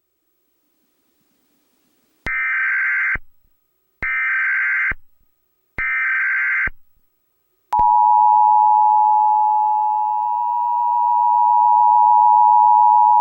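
Emergency Alert System signals: about two seconds in come three short bursts of warbling SAME header data tones, each just under a second long and about a second apart. A little past halfway the EAS two-tone attention signal (853 and 960 Hz together) starts and holds steady.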